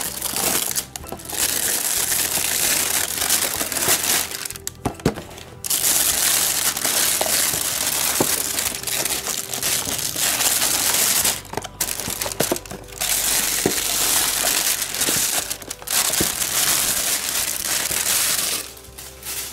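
Plastic shrink wrap crinkling and tearing as it is pulled off a brick of cardboard booster boxes, in long stretches broken by a few short pauses, with a few light knocks of the boxes being handled.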